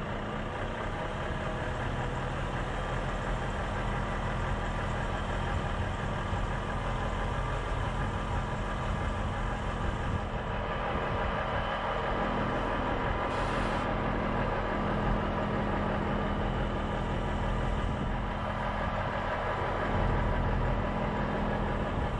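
Heavy truck's diesel engine running steadily as the truck drives along, with road noise; a short hiss about 13 seconds in.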